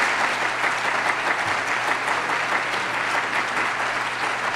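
Congregation applauding steadily, a dense even clapping from a seated crowd.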